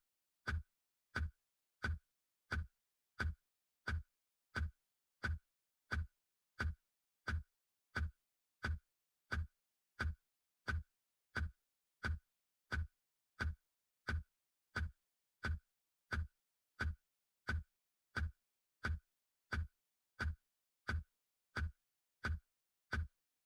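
Steady metronome-style beat for counting a routine: identical short beats, each a low thump with a click, evenly spaced at roughly 85 beats a minute with silence between them.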